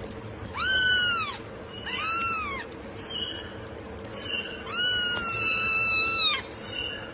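Domestic cat meowing three times, the third meow long and drawn out.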